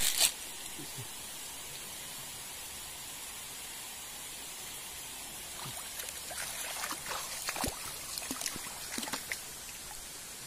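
Steady rush of a flowing stream, with a short loud burst right at the start. From about halfway in come scattered clicks and knocks of stones being moved and stepped on along a gravel bank.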